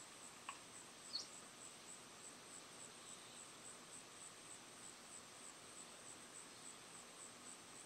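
Near silence with a faint, high-pitched insect chirping that pulses evenly about four times a second, and one short rising chirp about a second in.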